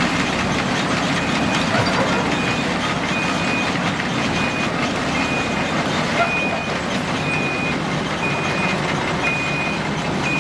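Heavy diesel machinery running steadily under a reversing alarm that beeps about once a second, starting about a second in.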